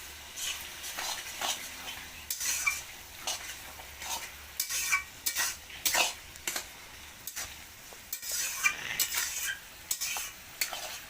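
Spice masala of fried onion, garlic, ginger and chillies sizzling in a pan while it is stirred, the stirring utensil scraping and knocking against the pan at irregular intervals over a steady frying hiss.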